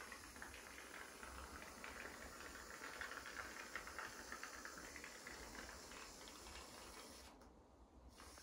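Aerosol can of shaving foam spraying a continuous line of foam: a faint, steady, crackly hiss that breaks off briefly near the end and starts again.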